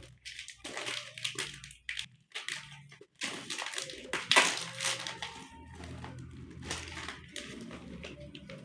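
Plastic snack packets crinkling and tearing as they are opened and handled, in irregular bursts, the loudest about four and a half seconds in.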